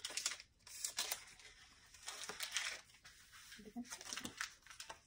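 Crinkling and tearing of a small wrapper handled in gloved hands, in a string of short rustles.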